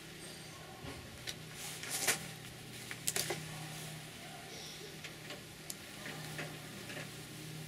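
Metal hive tool prying and scraping between wooden hive frames, giving several sharp clicks and cracks, loudest about two seconds in and in a quick cluster around three seconds, over a steady low hum.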